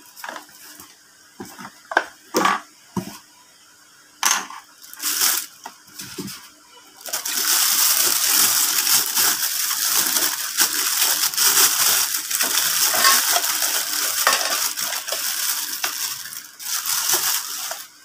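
A few scattered knocks and taps from a cardboard box and its contents being handled. Then, about seven seconds in, a thin plastic bag crinkles loudly and continuously for about ten seconds as a hang-on-back aquarium filter is unwrapped from it.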